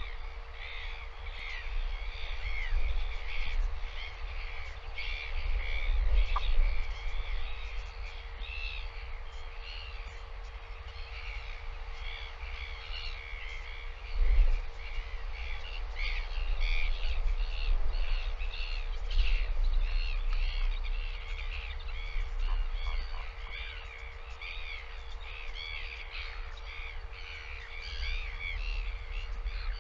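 Many small birds chirping and calling continuously in quick, overlapping short calls, with wind rumbling on the microphone and rising and falling in gusts, and a steady low electrical hum beneath.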